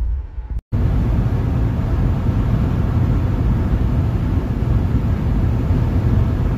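Steady road and engine noise heard inside a moving car's cabin, a low rumble with a hiss above it. The sound drops out briefly just under a second in, then the same steady noise resumes.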